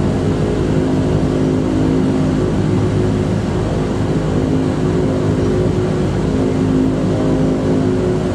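Twin turboprop engines and propellers of a de Havilland Canada Dash 8-100, heard inside the cabin: a loud, steady drone with several steady humming tones.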